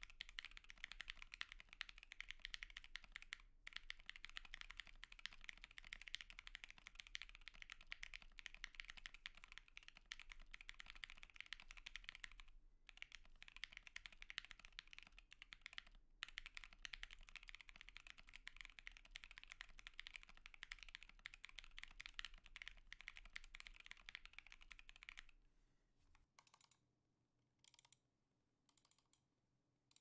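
Fast, continuous typing on a TOFU65 mechanical keyboard fitted with Alpaca V2 linear switches and PBT keycaps, a dense run of key clacks with a couple of brief pauses. The typing stops about five seconds before the end, leaving only a few faint scattered clicks.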